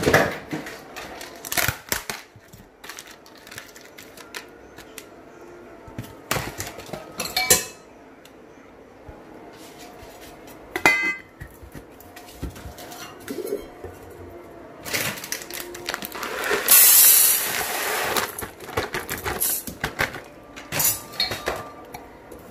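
Stainless steel storage tins being handled on a kitchen counter: repeated metallic clinks and knocks with short ringing, and a stretch of rushing hiss about fifteen seconds in.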